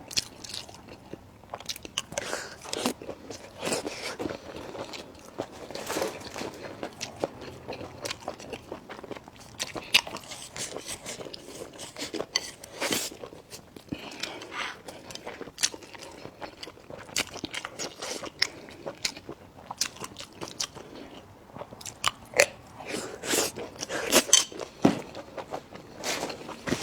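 Close-up chewing and crunching of food, with many short, irregular bites and crunches throughout.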